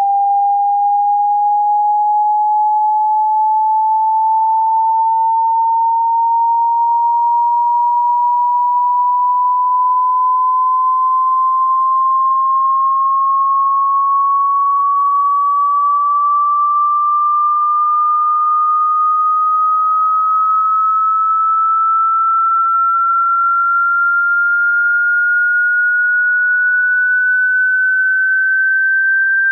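A single pure sine test tone gliding slowly and evenly upward in pitch, rising about an octave at a constant loudness: a frequency sweep for a self hearing test.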